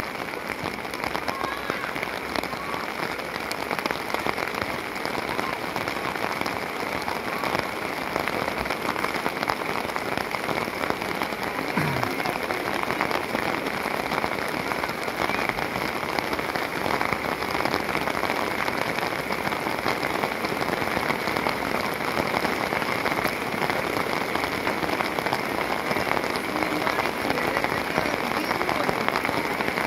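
Steady rain falling, with a dense patter of close drops hitting an umbrella canopy over the microphone.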